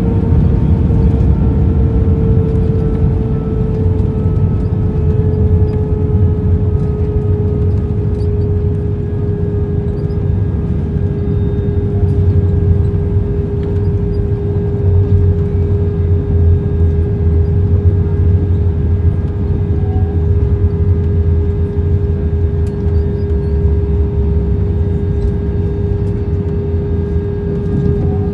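Airbus A321 cabin noise as the airliner taxis after landing: a steady low rumble of the engines at idle, with a steady hum that slowly drifts slightly lower in pitch.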